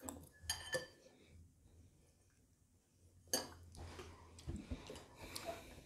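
A metal spoon clinking and scraping in a bowl of porridge as it is eaten, a few faint separate clicks with quiet gaps between them.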